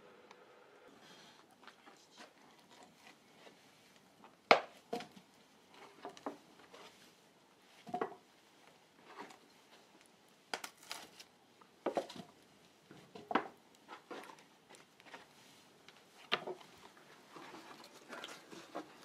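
Wood fire in the firebox of a wood-fired train kiln crackling and popping as wood offcuts burn and are fed in. Irregular sharp cracks and knocks come every second or so over a faint hiss, the loudest a single crack about four and a half seconds in.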